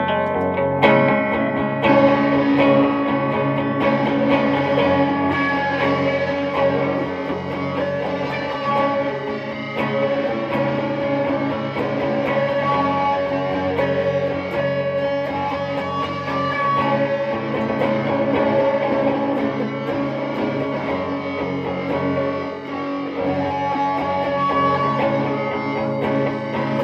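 Electric guitar playing in a jam, with long held notes and chords ringing over one another.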